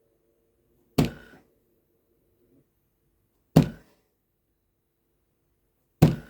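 Three sharp thunks about two and a half seconds apart: the hand holding a microcontroller board is whacked down on a tabletop to knock freshly melted solder out of the desoldered pin holes.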